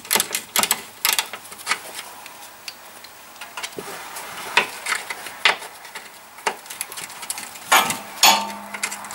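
A 3/8-inch-drive ratchet with a 12 mm deep socket clicking as the anti-roll bar bracket bolts are backed out: a quick run of clicks at first, then scattered single clicks and a short cluster near the end.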